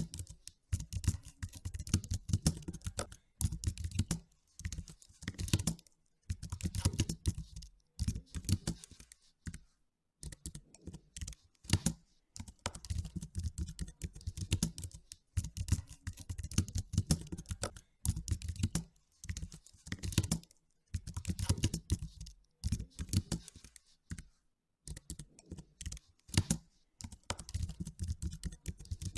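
Computer keyboard being typed on in bursts of rapid keystrokes, with short pauses between the bursts.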